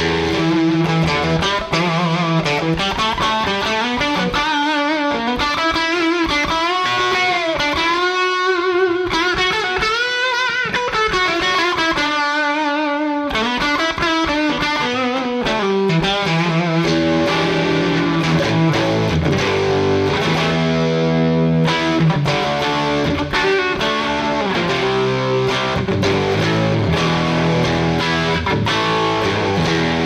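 1980 Gibson ES-335 TD semi-hollow electric guitar played through an amplifier. In the first half it plays a lead line of bent, wavering notes high on the neck. From about halfway on it plays lower chords and riffs.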